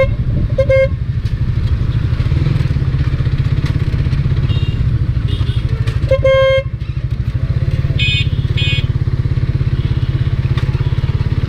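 Motorcycle engine running steadily at low revs over a rough dirt road, with short horn beeps near the start, a longer horn honk about six seconds in, and two quick higher-pitched horn beeps about eight seconds in.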